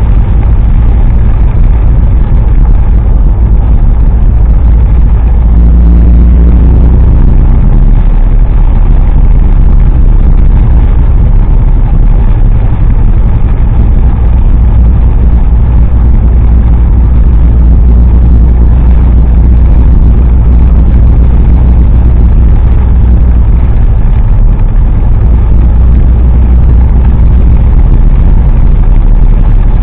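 Car driving on a wet road, heard from inside the cabin: a loud, steady low rumble of engine and road noise.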